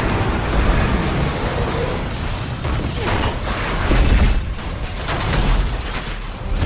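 Film sound effects of a spacecraft crash-landing: a continuous heavy rumble of the hull scraping and ploughing through the ground and debris, with booming crashes, loudest about four seconds in as it smashes into a building.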